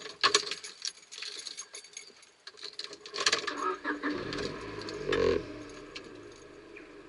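Car keys jangling and clicking against the steering column in the ignition, then the car's engine cranking and catching about five seconds in and settling into a steady idle.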